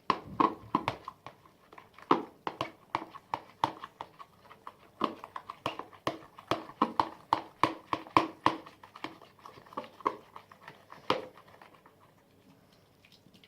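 Homemade slime being squeezed and worked by hand, making a quick, irregular run of wet clicks and pops that stops about eleven seconds in.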